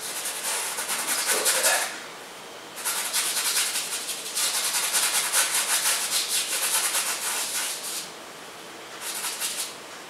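Paintbrush scrubbing acrylic paint onto canvas in quick back-and-forth strokes, a scratchy hiss in spells broken by short pauses, with a last brief spell near the end.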